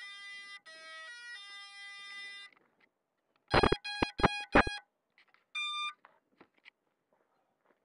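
Electronic startup beeps from an FPV racing quadcopter as it powers up: a run of tones stepping up and down in pitch, then four loud short beeps about three and a half seconds in, and a single higher beep about a second later.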